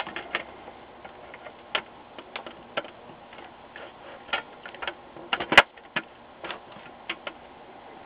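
Sheet-metal RF shield being handled and seated onto an LCD monitor's metal chassis: irregular light clicks and taps of metal on metal, with one sharper click about five and a half seconds in.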